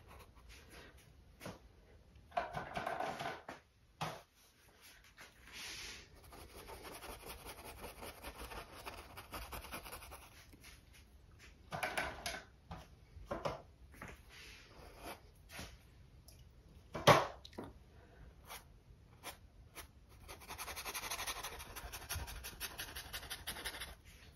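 Damp filbert brush scrubbing on stretched canvas to lift paint off, heard as faint, intermittent scratchy rubbing in several stretches. A single sharp knock comes about two thirds of the way through.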